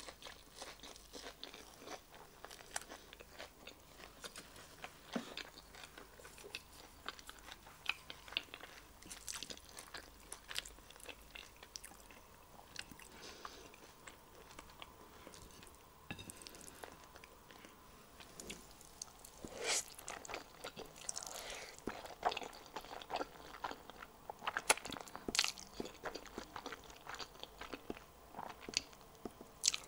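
Close-miked chewing and crunching of a lettuce wrap with breaded fish stick and creamy sauce, then chewing and slurping of instant black bean sauce noodles eaten from chopsticks. The mouth sounds get louder and busier in the second half.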